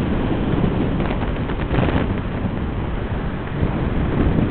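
Wind buffeting the microphone over the wash of waves breaking on the shore.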